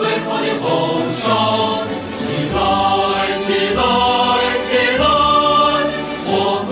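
Background music with a choir singing held notes that change every second or so.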